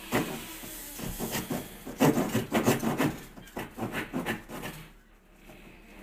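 Baseboard trim being pried off a wall with a bar: irregular scraping, rubbing and knocking of the trim against the wall and floor, easing off near the end.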